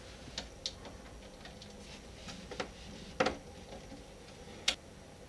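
A handful of light, sharp clicks from hands working a Hantek DSO5072P oscilloscope's front panel: a BNC probe plug being fitted to the channel-two input and the control knobs being turned. About five clicks spread out, the loudest a little after three seconds in.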